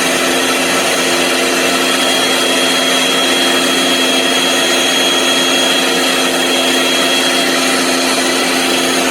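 Small electric motor running steadily at constant speed, with a loud even hum and a thin high whine over it.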